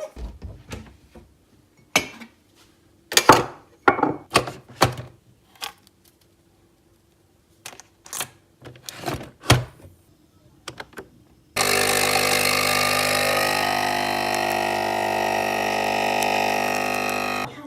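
Clicks and knocks as a capsule espresso machine is handled, then about twelve seconds in its pump starts up with a loud, steady buzz for about six seconds as it brews, cutting off suddenly.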